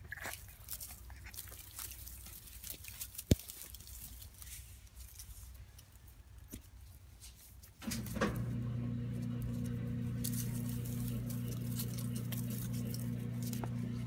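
Jagdterrier puppies play fighting, faint scuffling and small puppy noises with a sharp click about three seconds in. A bit past halfway a steady electric motor hum starts up and continues, louder than the puppies.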